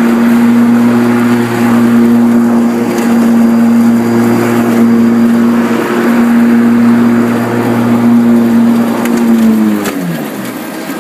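Electric lawn tractor's Motenergy ME1004 motor and spinning mower blades running under mowing load with a loud, steady hum. About nine and a half seconds in, the hum falls in pitch and fades as the load drops, the blades spinning down and leaving the tractor running on its own.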